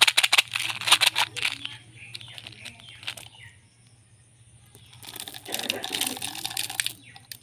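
Candy and its wrappers crinkling and crunching in two spells of dense crackling: one in the first two seconds, another from about five to seven seconds in.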